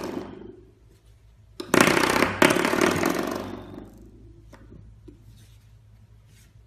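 Spring door stop flicked and left vibrating: a loud buzzing twang about a second and a half in, struck again a moment later, fading away over about two seconds.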